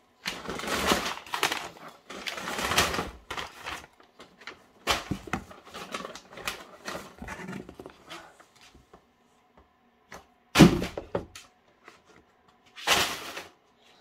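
Crumpled brown packing paper rustling and a cardboard shipping carton being handled, in several bursts. A single thump about ten and a half seconds in, and one more short rustle near the end.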